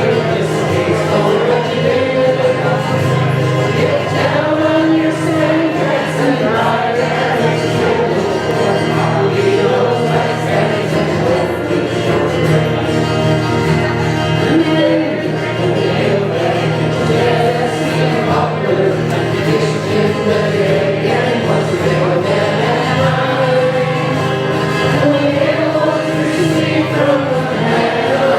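A group of voices singing a hymn together over held low accompanying notes.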